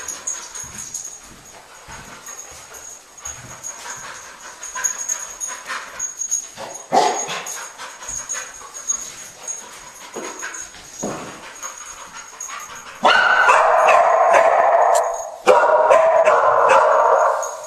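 Cadaver search dog barking loudly and repeatedly in two long runs over the last few seconds. Before that there are scattered light clicks and knocks as the dog moves about.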